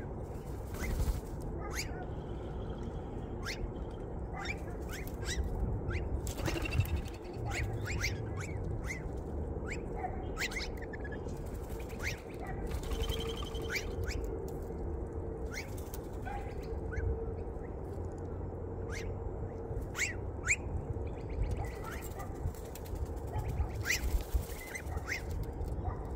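Wild birds calling with many short, sharp chirps, scattered unevenly, over a steady low background rumble.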